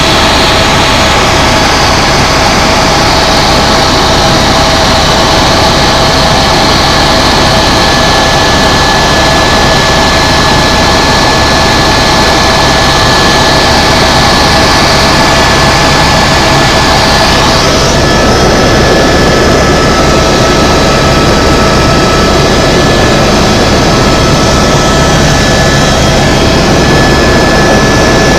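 Tour helicopter in steady flight: a constant loud engine and rotor drone with a steady high whine over it. The whine shifts slightly in pitch about two-thirds of the way through.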